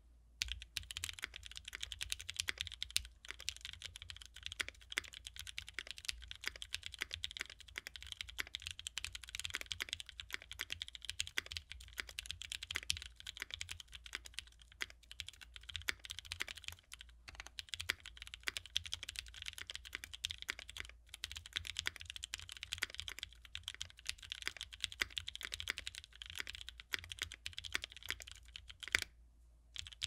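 Continuous fast typing on a Keycult No.1/60 custom 60% mechanical keyboard with an aluminium plate, Krytox-lubed NovelKeys Cream linear switches and GMK Striker keycaps. A dense run of key strokes, with a short pause about a second before the end.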